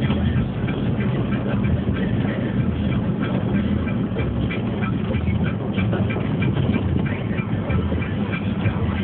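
A vehicle's engine drones steadily at a constant pitch, with many small clicks and rattles throughout.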